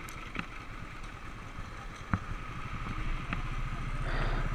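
Royal Enfield Thunderbird 350's single-cylinder engine running at low road speed, a steady low pulse, growing a little louder near the end.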